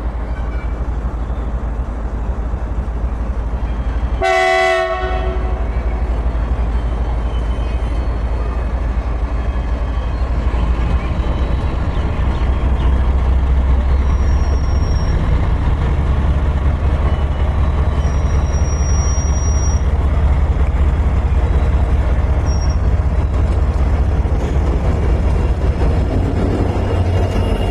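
Train running through the station with a steady heavy rumble that grows louder from about the middle, and one horn blast of about a second a few seconds in.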